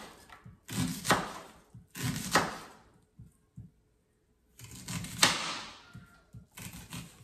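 Chef's knife slicing through a yellow onion and knocking down on a wooden cutting board, four slices each ending in a sharp knock, with a pause of about a second and a half in the middle.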